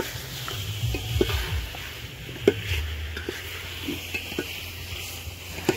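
A steel ladle stirring and scraping chicken pieces in a pot, with a few sharp clinks of metal on the pot, the loudest about two and a half seconds in and another near the end.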